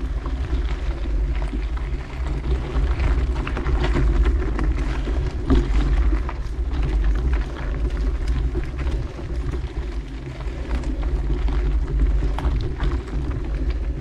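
Steady low wind noise on the microphone and tyre noise from a bicycle rolling along a trail, with scattered small clicks and rattles.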